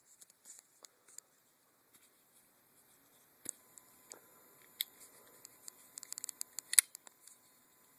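Small, sharp clicks and taps from handling a new Microtech Select Fire folding knife: a few scattered ones at first, then a quick run of clicks in the second half, the loudest one near the end.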